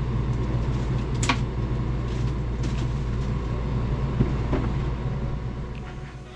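A steady low mechanical rumble, with a few light clicks and knocks as a small camper's fridge and overhead cabinet are handled; the rumble fades near the end.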